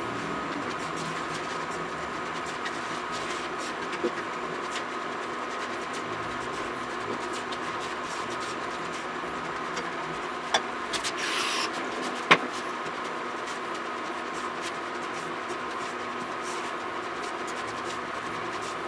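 Steady electrical hum with a whine from a portable induction hob running under a pan, over soft scraping of a spatula stirring a crumbly almond-meal and erythritol mixture in a nonstick pan as it roasts into marzipan. A little past halfway there is a sharp click, a brief louder scrape, then another click.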